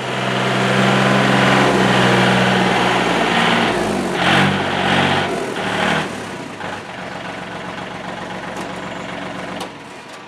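A vehicle engine running, loud and steady at first, its pitch wavering about four seconds in, then carrying on at a lower level from about six seconds.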